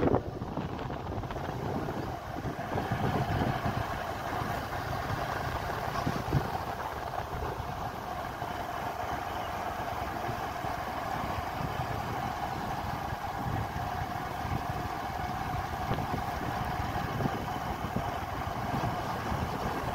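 A vehicle driving along a forest road: steady engine and road noise.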